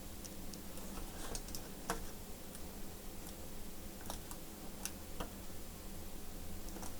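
Scattered light clicks and taps, irregularly spaced, from small tools being handled on a laptop mainboard, over a faint steady hum.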